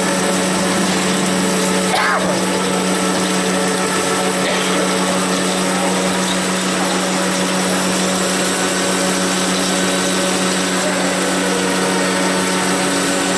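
CDMP2012A CNC plate drilling machine drilling a hole in a metal plate under coolant: a steady machine hum under constant cutting noise.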